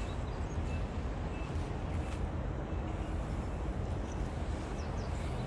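Steady low rumble of distant expressway traffic, with a few faint, short bird chirps.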